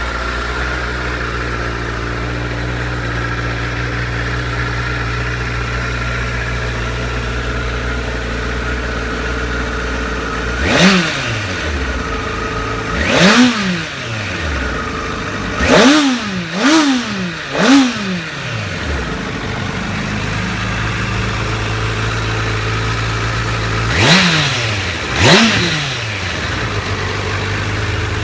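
2015 Honda CBR1000RR SP's inline-four engine idling steadily, with seven quick throttle blips. Two come about ten seconds in, three follow in quick succession a few seconds later, and two more come near the end; each rev rises sharply and drops straight back to idle.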